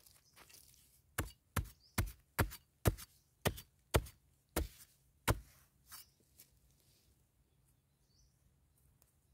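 A metal digging blade chopping into hard, dry, clumpy soil to loosen it around a wild yam tuber. About nine sharp strikes come roughly two a second, starting about a second in, followed by a couple of softer ones.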